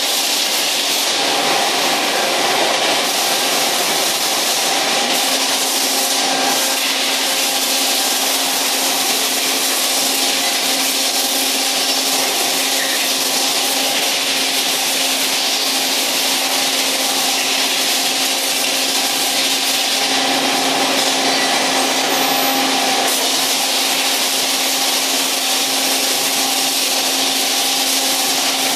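Steady din of a row of CNC machining centres running: a continuous hiss with a steady mid-pitched tone, joined about five seconds in by a low hum.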